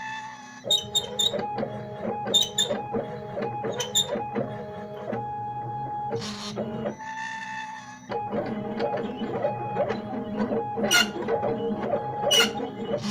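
Stepper motors of a homemade CNC machine driving its axes, whining in steady tones that jump in pitch as the moves change, with sharp clicks in between. The motors pause briefly twice, leaving a hiss.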